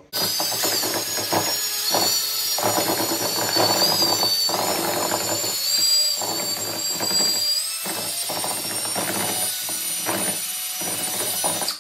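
Cordless drill spinning a paddle mixer through quick-set drywall joint compound in a metal mud pan. The drill's high motor whine steps slightly up and down in pitch as the trigger is worked, over irregular scraping and churning from the paddle in the mud and against the pan.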